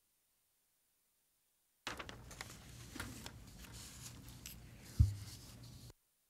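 Dead silence, then about four seconds of faint room noise through an open microphone: small scattered clicks and handling noises over a low electrical hum, with a single thump about five seconds in. The sound cuts off abruptly, as though the microphone is gated shut.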